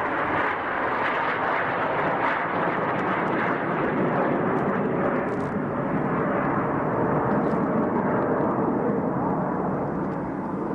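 Jet engine noise from a pair of Canadair CT-114 Tutor jets, each with a single turbojet, flying an aerobatic pass overhead. The noise is steady and even.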